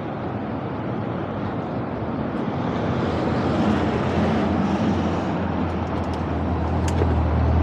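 Honda Motocompo scooter's big-bore 65cc two-stroke engine running at low speed while pulling in to park, its low hum growing stronger in the second half. A couple of sharp clicks come near the end.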